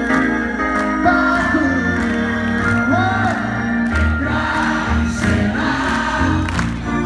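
Symphony orchestra playing a pop song live, with a crowd of many voices singing along over a pulsing bass.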